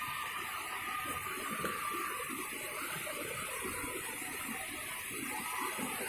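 Steady rushing of flowing water from the falls' stream, an even hiss with no breaks.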